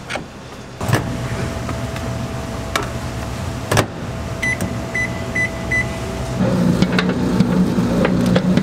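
Microwave oven running with a steady hum, with a couple of sharp clicks and four short high beeps near the middle. Then a commercial spiral dough mixer kneading bread dough takes over with a louder, deeper steady motor hum for the last couple of seconds.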